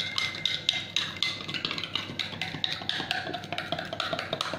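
Metal spoon stirring a drink in a drinking glass, clinking rapidly against the glass several times a second.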